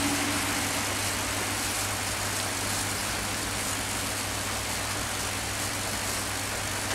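High-voltage insulators on a transmission tower buzzing with electrical discharge in the rain: a steady low hum under an even crackling hiss. The buzz is the sign of a faulty, wet insulator leaking current.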